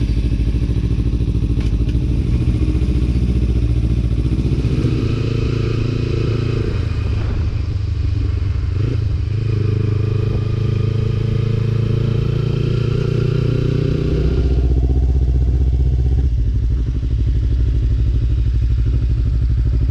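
Motorcycle engine running, loud and steady, with its note changing a few times.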